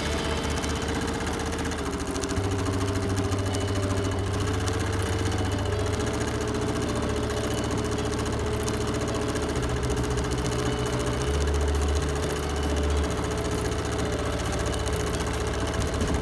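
Bernina Q20 sit-down quilting machine stitching steadily: a fast even needle rhythm over a motor hum that changes pitch a few times as it runs.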